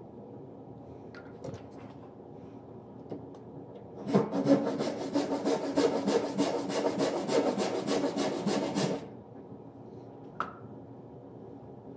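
Rapid back-and-forth strokes of a hand tool rasping on wood, about five seconds of steady rhythmic sawing or abrading that starts a few seconds in and stops suddenly, with a few light clicks of handling before and after.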